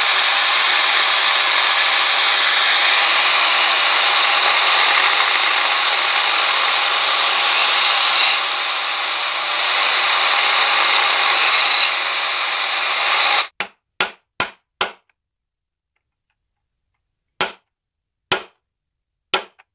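Angle grinder cutting metal inside a semi-hermetic compressor's crankcase, running steadily with a brief dip about eight seconds in, then shutting off. Then sharp hammer blows: four in quick succession, followed by a few more spaced out.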